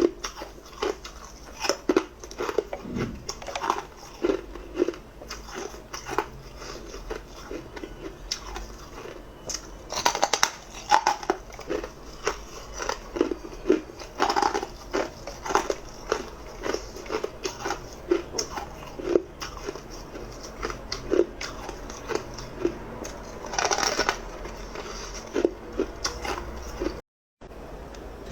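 A person biting and chewing hard ice cubes close to the microphone: loud, irregular crunches and cracks, several a second, with quieter grinding between bites.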